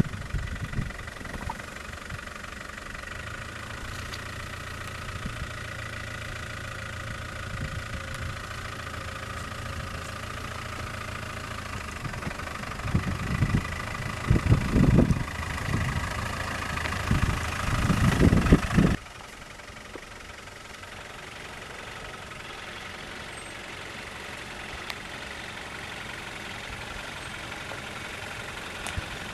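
Land Rover Discovery's 200Tdi four-cylinder turbodiesel running at low revs as it crawls down a steep track. Irregular low rumbling gusts on the microphone come a little past the middle and are the loudest part. The sound then drops suddenly to a quieter, steady engine note.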